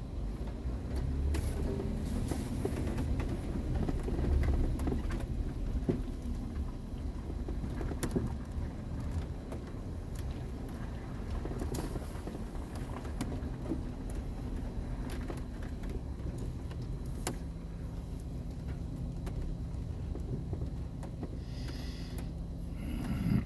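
Inside a vehicle crawling along a rough, muddy dirt trail: a steady low engine and tyre rumble with scattered knocks and rattles from the body and suspension over the ruts, and a louder bump near the end.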